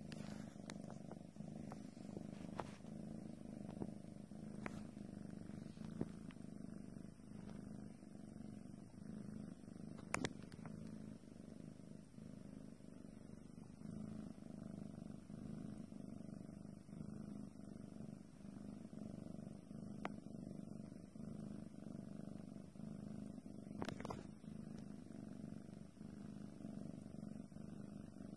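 Domestic cat purring close to the microphone, a steady low rumble that swells and eases with its breathing, broken by a few brief sharp clicks.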